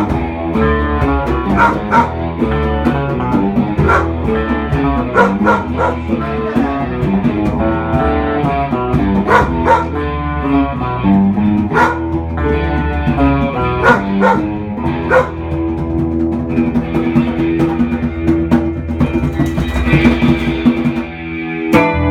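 Live rock band playing electric guitars, bass and drums, with a dog howling along to the music.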